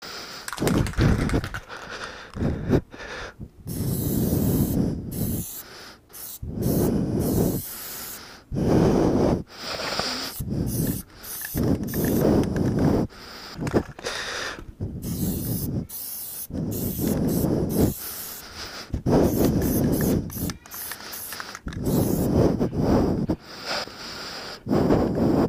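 Aerosol spray-paint can hissing in repeated short bursts. Rough, rumbling buffeting on the microphone comes and goes between and under the sprays.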